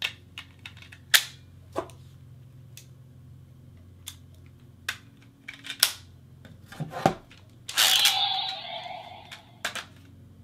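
Sharp plastic clicks and snaps of Ultraman Geed-era DX transformation toy pieces being fitted and worked by hand. About eight seconds in comes a short burst of electronic sound effect from the toy's small speaker.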